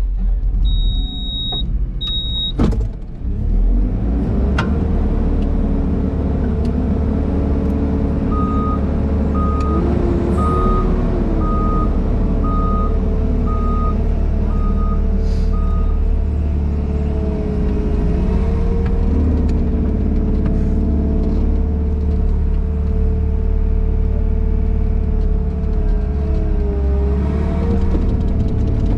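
JCB Pothole Pro's engine running as heard from inside its cab, its pitch dipping and rising as the machine is driven and manoeuvred. A reversing alarm beeps about one and a half times a second for several seconds from about eight seconds in. Near the start there are two short high beeps and a knock.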